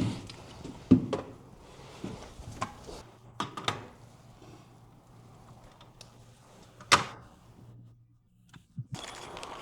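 A door being handled: a series of scattered knocks and thumps, the loudest about seven seconds in, over a faint steady low hum.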